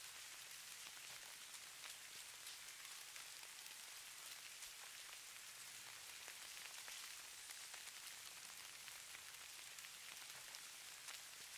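Faint, steady patter of light falling precipitation: a soft hiss made of many tiny ticks, offered as the sound of falling snow.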